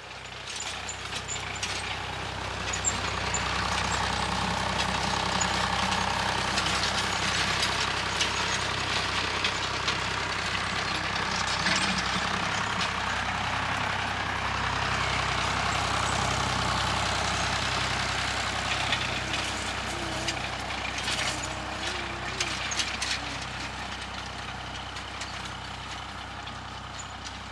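Massey Ferguson 35 tractor running steadily while it pulls a tedder-rake through cut grass. It grows louder over the first few seconds, then fades gradually toward the end as it moves away.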